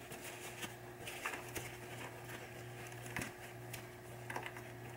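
Soft rubbing and a few light, scattered clicks as small pop bumper parts are wiped with a rag and handled, over a steady low hum.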